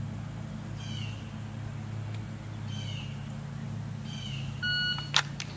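Electronic shot timer giving its start beep near the end, one short steady tone, followed by two sharp clicks as the pistol is drawn from the holster. Before the beep, a bird chirps three times over a steady low hum.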